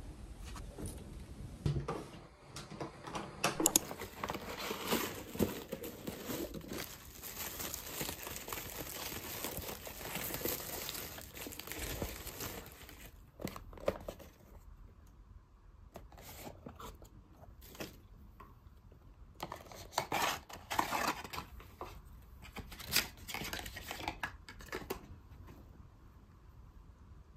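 Paper packaging being unwrapped by hand: crinkling and tearing of kraft honeycomb paper wrap and rustling of a cardboard box. It is a dense, continuous rustle for the first half, then scattered crinkles and clicks of handling.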